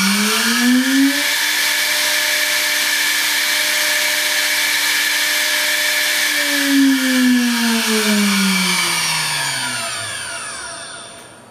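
AXYZ CNC router spindle running empty with a new quick-change tool holder fitted: a high whine that finishes rising in pitch about a second in as it reaches 20,000 RPM, holds steady for about five seconds, then falls in pitch and fades as the spindle spins down. It runs smooth as can be, with no out-of-balance sound.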